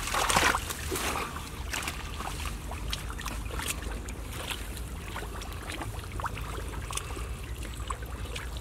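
Hands sloshing and splashing in shallow muddy water, with a louder splash right at the start and then small, irregular splashes and drips.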